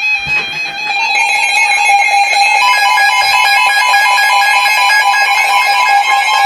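Weather alert radios sounding their warning alarms for a severe thunderstorm warning: a steady electronic tone, joined about a second in and again about two and a half seconds in by higher tones beeping at an even rapid pace.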